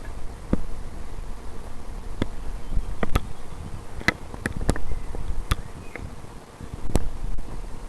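Airsoft guns firing single shots: sharp pops at irregular intervals, a few in quick succession, over a low rumble of wind or handling noise.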